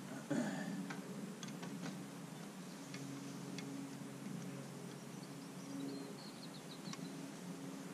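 Quiet outdoor ambience with a steady low hum, a few faint clicks in the first half, and a short run of high chirps about six seconds in.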